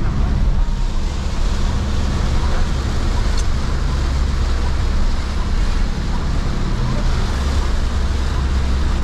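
Steady cabin noise of a Toyota van driving through heavy rain: a low engine and road rumble under the even hiss of rain and tyres on the wet road.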